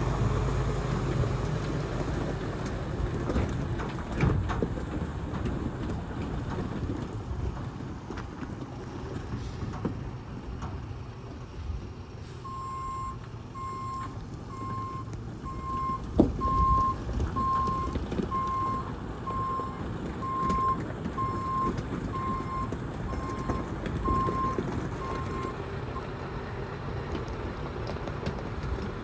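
Detroit DD15 six-cylinder diesel of a Freightliner SD122 tri-axle dump truck running as the truck manoeuvres. About halfway through, a backup alarm starts a steady series of short single-pitch beeps, a little faster than one a second, for about thirteen seconds. One sharp knock comes a few seconds after the beeping starts.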